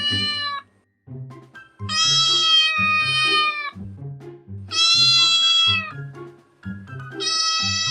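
Cat meowing in long, drawn-out, slightly falling calls: one ends about half a second in, two full meows of about two seconds follow, and another starts near the end. Background music with a steady beat plays underneath.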